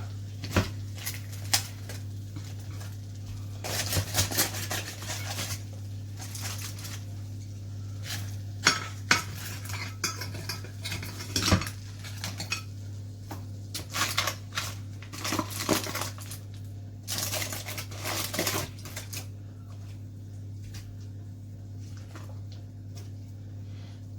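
A metal utensil clanking and scraping against a cooking pot in irregular knocks and scrapes, as cooked chicken is tipped and worked into the spinach sauce. The clatter dies down about five seconds before the end. A steady low hum runs underneath.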